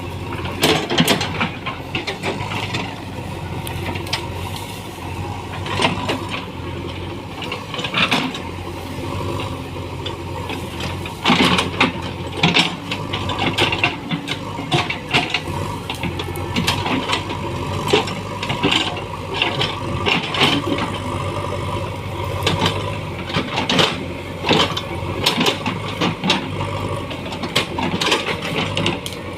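JCB backhoe loader's diesel engine running steadily, with many irregular sharp clanks and cracks as the machine works clearing trees.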